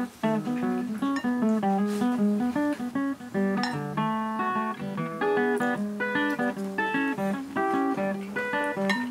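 Background music: a plucked guitar playing a light, continuous melody.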